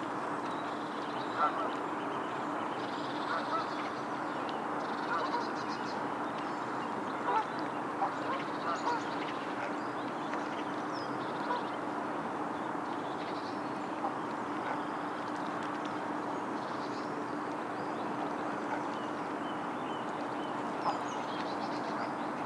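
Ducks quacking on and off in short calls over a steady low hum.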